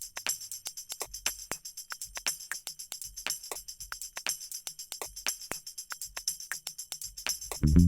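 Background music: a quick, steady jingling percussion beat with almost no bass or melody.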